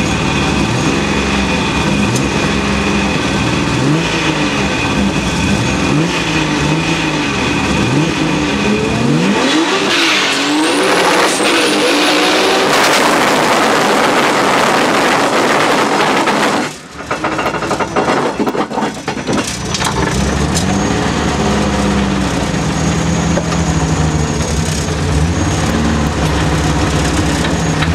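Turbocharged BMW M50 straight-six in an E30, heard from inside the cabin. It revs up and falls back over and over for about nine seconds, then runs flat out with a high rising whistle. The roar cuts off suddenly about 17 seconds in, and the engine settles to a low, steady running note.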